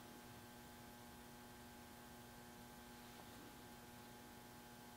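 Near silence: room tone with a steady electrical hum.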